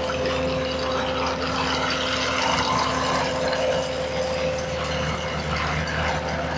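Skid steer engine running steadily, with a constant tone held over the engine noise.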